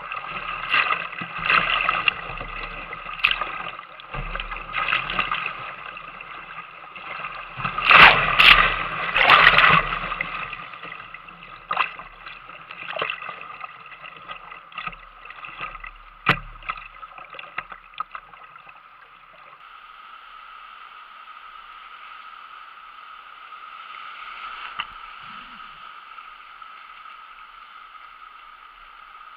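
Whitewater rapids rushing and splashing around a kayak, with sharp splashes from paddle strokes and waves breaking over the deck, loudest about eight to ten seconds in. In the last ten seconds it settles to a steadier, quieter rush of moving water.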